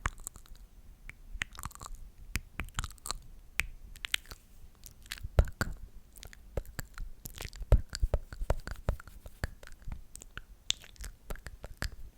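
Close-miked ASMR mouth sounds: a dense, irregular run of wet clicks and smacks from lips and tongue, without words.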